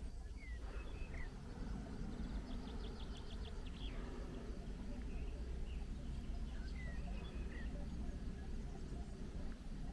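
Outdoor ambience with a steady low rumble and small birds calling: a few short falling chirps and one quick trilled run of notes about three seconds in.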